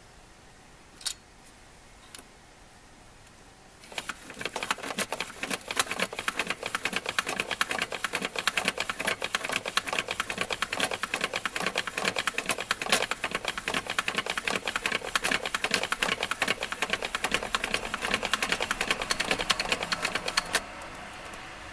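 A Showa-era Nintendo horse-racing game being cranked by hand: the plastic crank mechanism and track clatter in a rapid run of clicks as the horses are driven down their lanes. The clatter stops suddenly near the end. A single sharp click comes about a second in.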